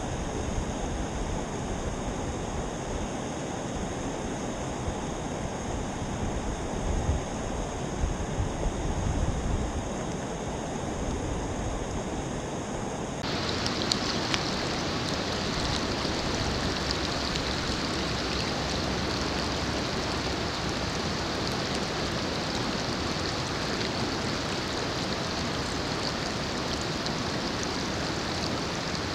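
Water rushing over a small rock dam: a steady, even rush, with low rumbles in the first half. About halfway through the sound changes abruptly to a brighter, hissier rush.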